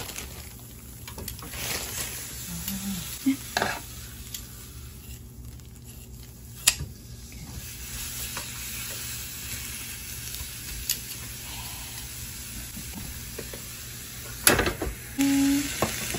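Red-marinated meat sizzling on an electric contact grill, with metal tongs clicking against the grill plate now and then. Near the end comes a loud clatter as the grill lid is shut, followed by a short beep.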